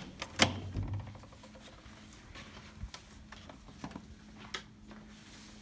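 Dorm room door lever knob and latch clicking as the door is opened, with a short low thud about a second in. Then faint scattered small clicks over a faint steady hum.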